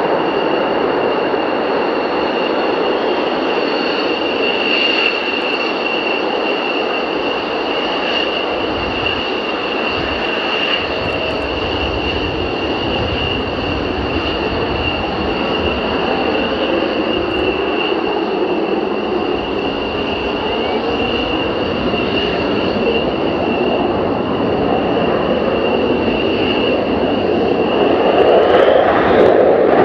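F-16 fighter jets' engines running on the runway during takeoffs: a loud, steady rush of jet noise under a steady high-pitched whine. Near the end the whine rises and cuts off as the noise grows louder.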